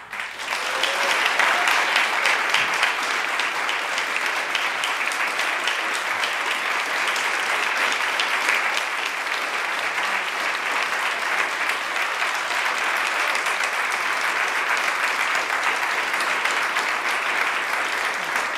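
Audience applauding: many hands clapping together, building up over the first second or so and then holding steady.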